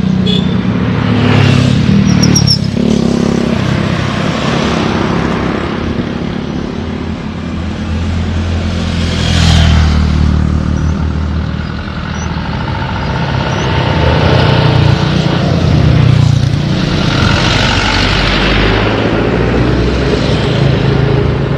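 Road vehicles, cars and motorcycles, passing close by one after another, each swelling and fading, over a steady low engine rumble.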